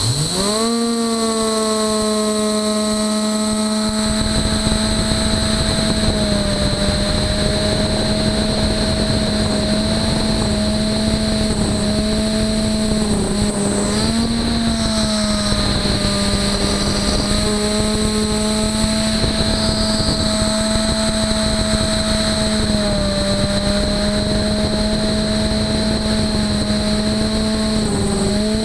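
Beaver HDZero CNC router spindle spinning up with a rising whine, then holding a steady pitch. Cutting noise comes in about four seconds in as it mills aluminum plate, and the pitch sags briefly a few times under load.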